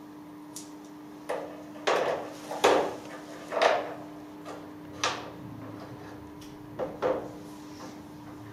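Smooth pebbles knocking and clacking against each other and on a wooden table top as they are picked up and set down by hand: about eight irregular knocks, a few with a short rattle of stones after them.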